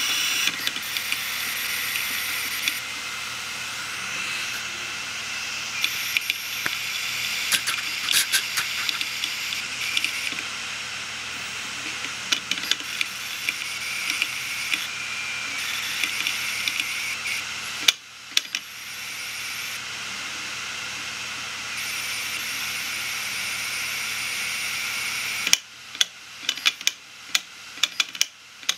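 Failed hard drive running with its cover off: the spinning platter gives a steady high whine and hiss while the head arm seeks with scattered clicks. Near the end the whine drops and the heads click in a regular rhythm of about two a second, the repeated clicking of a dying drive.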